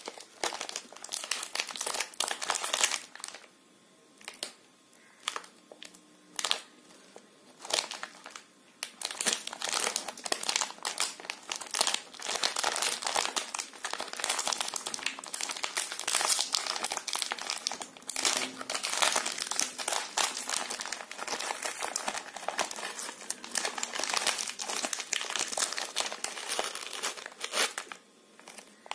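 A crinkly purple foil-lined snack wrapper is handled, twisted and pulled open by hand. There are scattered crinkles at first, then about twenty seconds of continuous crinkling and rustling.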